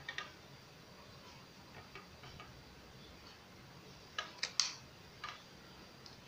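Sharp clicks and small knocks of hard plastic and metal parts of a mini hand air pump being handled: two near the start, a few faint ones in the middle, and a quick group of three, the loudest, about four seconds in, with one more a second later.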